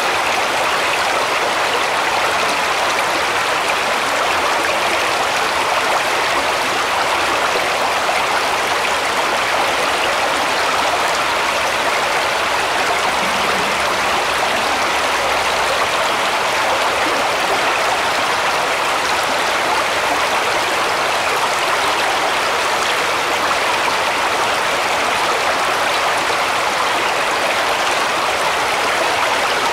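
A shallow woodland brook running over stones: a steady rush and babble of water.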